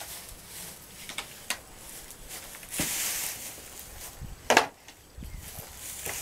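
Scattered clicks and rustling of straw bedding, with one loud, sharp knock about four and a half seconds in.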